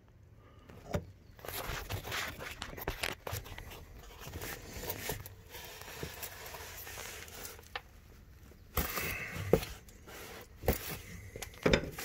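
Steel wrench being fitted and worked on a stuck hydraulic hose fitting of a skid steer's drive motor: irregular metal clicks, knocks and scrapes, with a few sharper knocks in the second half.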